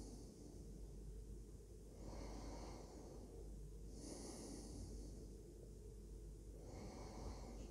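Slow, quiet breathing, probably through the nose, with a soft breath every two seconds or so, alternating between a higher hiss and a lower rush, over a low steady hum.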